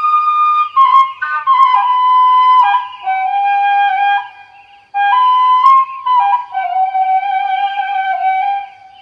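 Background music: a slow melody on a flute-like wind instrument, with long held notes that step down in pitch. It plays in two phrases with a brief break about five seconds in.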